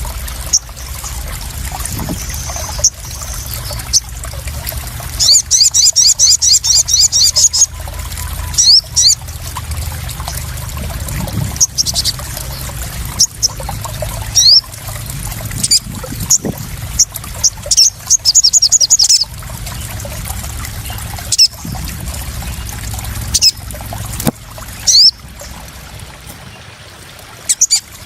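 Water trickling and splashing steadily, with a crimson sunbird (sogon) calling over it: fast high trills lasting a couple of seconds at about 5 s and again at about 17 s, and short sharp chips and downslurred notes scattered between them.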